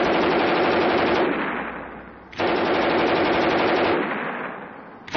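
German MG-34 machine gun firing 7.92 mm rounds on full automatic in long bursts: two sustained bursts of about a second and a half each, each dying away afterwards, with a third burst starting at the very end.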